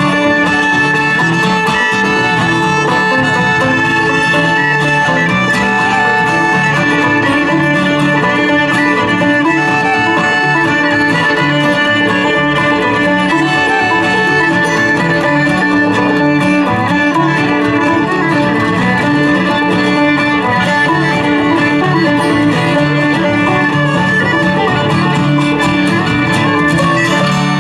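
A bluegrass string band playing an instrumental passage: fiddle carrying the melody over strummed guitar and banjo.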